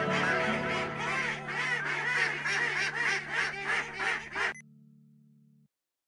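Several ducks quacking over and over, the calls overlapping, over background music with a steady low drone. The quacking cuts off abruptly about four and a half seconds in, and the drone stops a second later.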